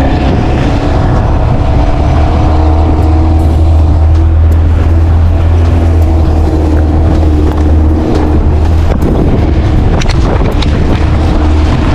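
Outboard motor of a small fishing boat running steadily under way, with a constant low hum.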